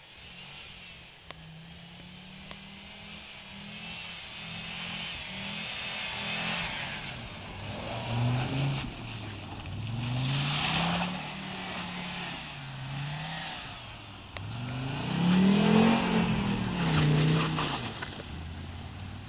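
Audi 90 quattro's five-cylinder engine revving up and down again and again as the car is drifted on snow, with the rush of tyres spinning in snow at the loudest moments. It swells twice, loudest a few seconds before the end.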